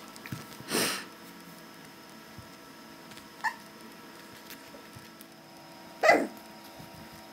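Pembroke Welsh Corgi puppies: two short, breathy huffs about five seconds apart, the second the louder, with a brief faint squeak between them.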